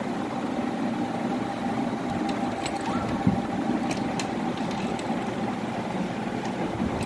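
A steady machine hum with a constant tone running through it, with a few light clicks and a soft knock about three seconds in.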